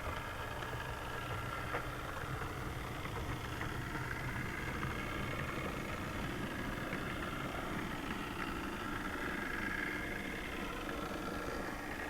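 Model train running along the track, heard from a camera riding on the train: a steady motor whine and wheel rumble with a few faint clicks.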